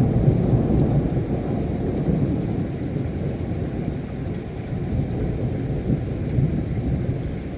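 Thunderstorm: steady rain with a deep, low roll of thunder that is loudest at first and slowly fades.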